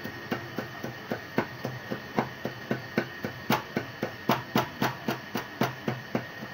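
Butcher's cleaver chopping raw beef into qeema on a wooden chopping block, steady rapid blows about three to four a second.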